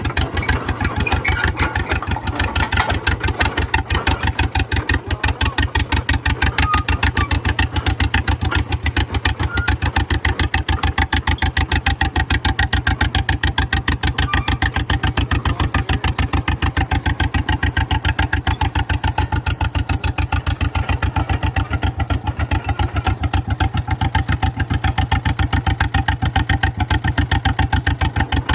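Engine of a 1954 John Deere 40 crawler dozer idling steadily, its exhaust beating as an even, rapid train of pulses.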